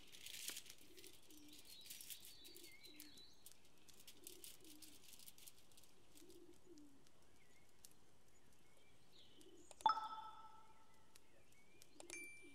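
Doves cooing over and over in the background, with a few thin bird chirps. There is brief rustling at the start, and about ten seconds in comes a single sharp clink that rings on for a moment.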